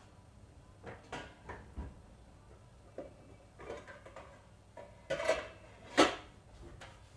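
Kitchenware clattering: a scattered series of knocks and clinks of pots, pans or utensils being handled, the loudest about six seconds in.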